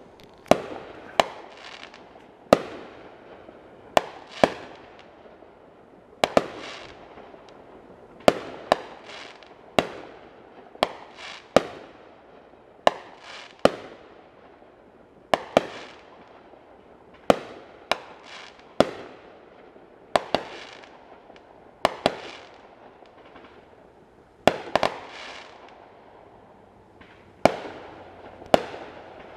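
Aerial fireworks bursting in a long, uneven string of sharp bangs, about one a second, each trailing off in an echo.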